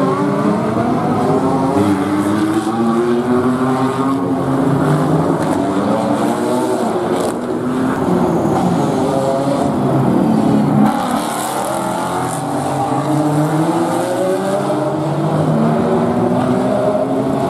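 Several GT race cars' engines running on track, their overlapping engine notes rising and falling in pitch as they rev up and down through the corner and pass by, with no break in the engine sound.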